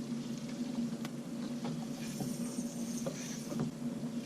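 A small electric motor on the boat humming steadily, with a few faint clicks over it.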